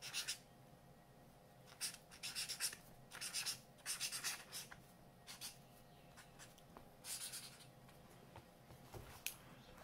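Tip of a silver metallic marker scratching across black sketchbook paper while a tag is written: short, quick strokes in irregular groups, with brief pauses between them.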